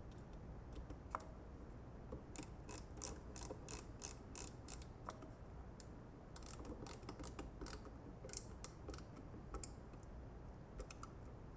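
Ratchet wrench clicking in quick runs, about four clicks a second, then a sparser second run later on, as a fastener is turned.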